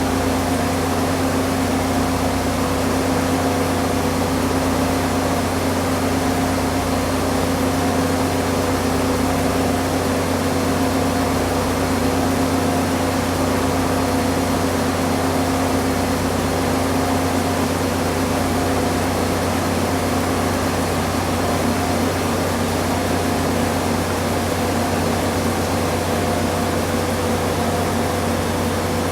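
Front-load washing machine in its spin cycle, the drum spinning at a steady speed: an even whir with a steady hum and whine that holds without change.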